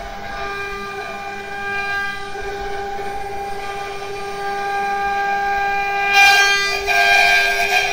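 Spindle of a four-axis CNC router whining steadily as its bit carves a rotating wooden log. The cutting noise swells louder about six seconds in and again about a second later.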